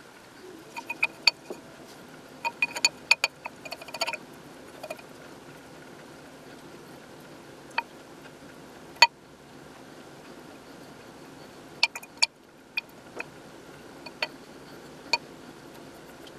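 Light clinks and taps of a paintbrush against a clear glass globe as white paint is brushed onto its inside, each with a short glassy ring. There is a quick run of clinks in the first few seconds, then single clinks now and then.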